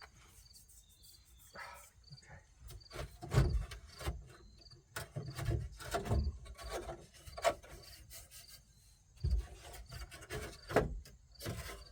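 Hands working a dash trim piece loose in an old pickup's dashboard: irregular clicks, knocks and rubbing. Insects chirp faintly in a steady rhythm behind it.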